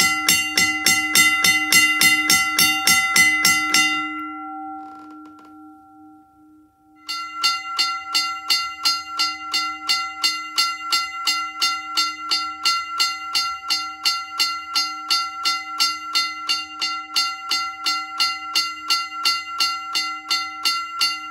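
L.S. Brach 1-A 'Max-a-tone' mechanical railroad crossing bell, battery-powered, its striker hammering the gong in a rapid, even train of strikes over one steady ringing tone. It stops about four seconds in, the gong ringing away for a moment, and starts again about seven seconds in.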